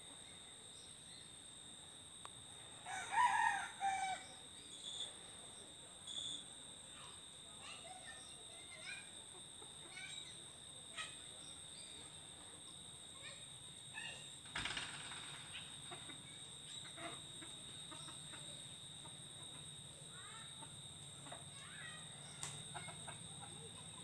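A rooster crows once about three seconds in, then hens give scattered short clucks and chirps. A steady high insect drone runs underneath, with a brief rustle about halfway.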